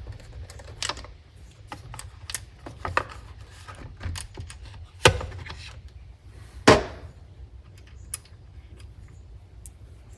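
Scattered light clicks and taps of a socket wrench and a string trimmer's engine cover being handled, with two sharper knocks about five and six and a half seconds in.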